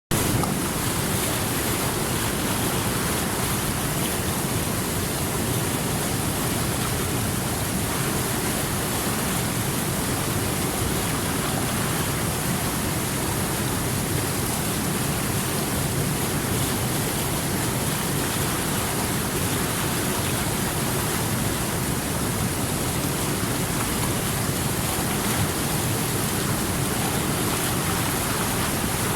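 A small creek flowing, a steady even rush of water.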